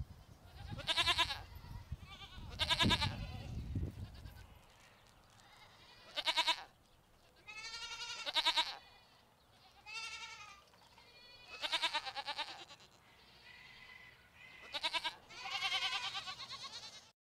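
Goat bleating repeatedly: about eight separate wavering bleats spread over the stretch, a few drawn out longer than the others.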